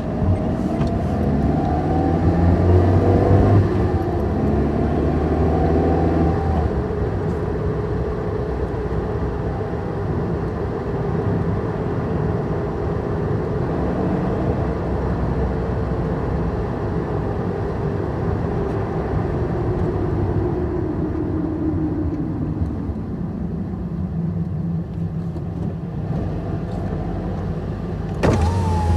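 Car driving: engine and road noise, the engine's pitch climbing as it accelerates over the first few seconds, then running steadily at cruising speed. Near the end a sudden louder sound with a steady high tone cuts in.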